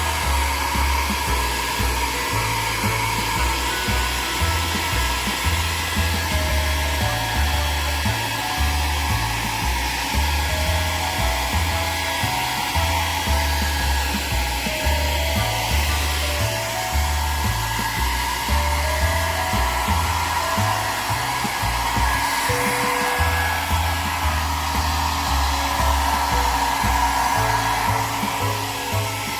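Hair dryer blowing steadily, with background music playing a stepping bass line underneath.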